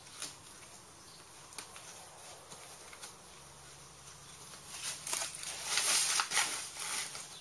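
Rolled canvas tent wall rustling and crackling as it is handled and fastened with its loop and toggle ties, with a louder flurry of rustling about five seconds in.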